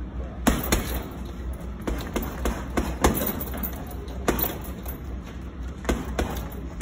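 Gloved punches smacking into a hanging heavy bag: sharp, sudden hits in irregular short combinations of two or three, with brief pauses between.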